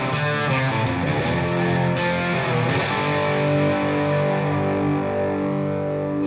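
Background music led by an electric guitar playing long held notes.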